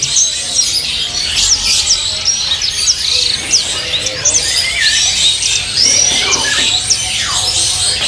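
Many caged songbirds chirping and singing at once: a dense, overlapping chatter of high, quick chirps and short whistled notes.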